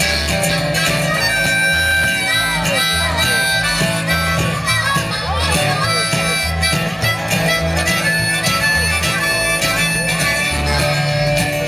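Live old-time string band playing, with a harmonica taking the lead in bending, wailing phrases over strummed guitar and a steady, pulsing bass line.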